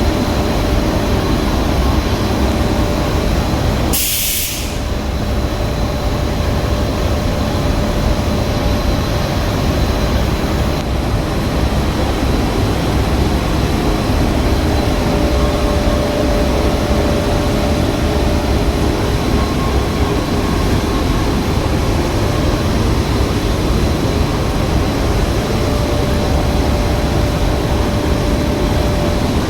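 Industrial film-processing machine running with a steady mechanical din and a faint constant hum, broken about four seconds in by a short, sharp hiss.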